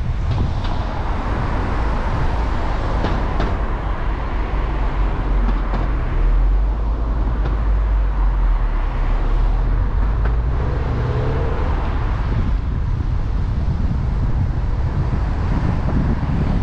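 Steady wind rumble on the microphone with a motor vehicle's engine hum passing through the middle.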